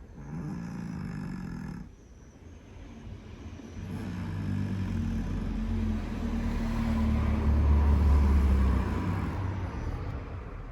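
Scottish Fold cat snoring very loudly: a short snore, a pause of about two seconds, then one long, low snore that swells and slowly fades.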